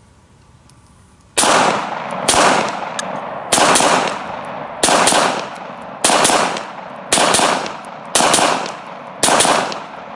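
Beretta 92X Performance 9mm pistol fired in double taps: pairs of shots in quick succession, about one pair a second, starting about a second and a half in, each shot trailing off in a short echo.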